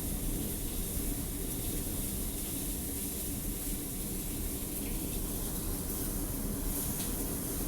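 Steady snowstorm wind: a low rumble of wind buffeting the microphone under a high hiss, without letup.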